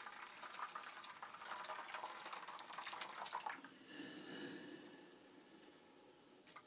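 Boiling water poured into a shallow tray already holding water, a steady splashing trickle that stops about three and a half seconds in and fades away. A faint click near the end.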